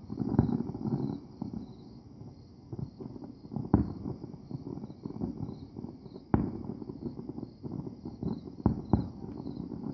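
Distant aerial firework shells bursting: sharp bangs every two to three seconds, with two in quick succession near the end, over a low crackle.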